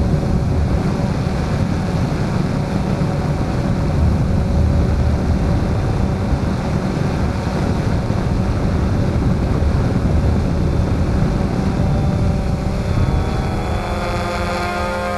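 DJI Phantom 1 quadcopter's four motors and propellers buzzing steadily in flight, heard close up through the camera mounted on the drone. The pitch of the hum shifts near the end.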